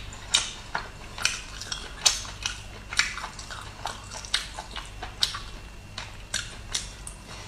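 Close-miked eating sounds: mouth noises from biting and chewing boiled shrimp, a run of short, sharp clicks about two or three a second.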